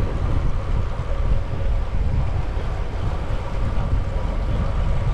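Wind buffeting the microphone of a camera on a moving bicycle, a steady low rush with the rumble of road-bike tyres rolling on a concrete path.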